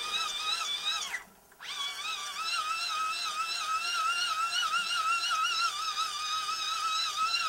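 Hand-cranked Eton emergency charger's generator whining as the handle is turned, its pitch wavering with each turn. About a second in it winds down and stops briefly, then starts up again. The cranking is charging a phone plugged into it.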